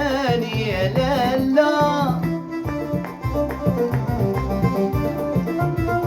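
Moroccan chaabi music, instrumental: a wavering lead melody with vibrato in the first two seconds, then the band playing on over a steady hand-drum rhythm.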